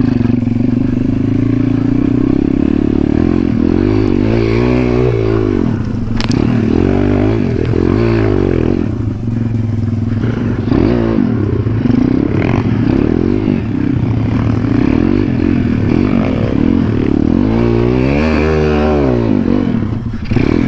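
MRF 140 RC pit bike's single-cylinder four-stroke engine running under way over rough ground, the revs rising and falling with the throttle, most clearly about four seconds in and again near the end. A sharp click about six seconds in.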